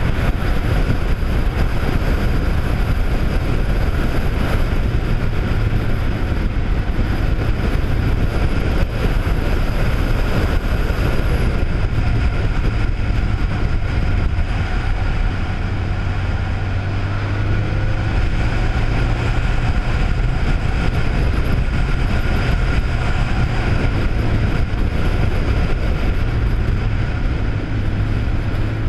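A faired touring motorcycle ridden at a steady speed: a steady low engine note under a constant rush of wind over the microphone.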